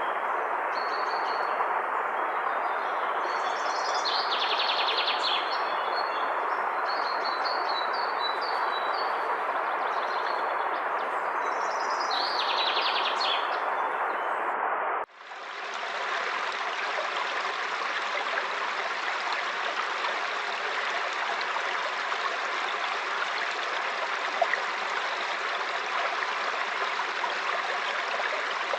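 Steady rush of flowing river water with small birds chirping and trilling above it. About halfway through the recording cuts abruptly to another stretch of rushing water with no birdsong.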